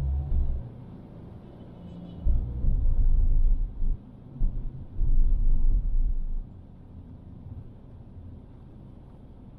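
Road and engine rumble of a car driving through city traffic, heard from a camera mounted in the car. Heavy bursts of deep rumble come and go several times, then the sound settles to a quieter, steady hiss for the last few seconds.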